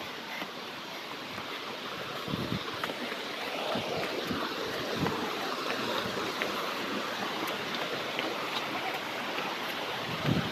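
Rocky forest stream rushing and splashing over boulders in a steady wash of water, with a few short low thumps.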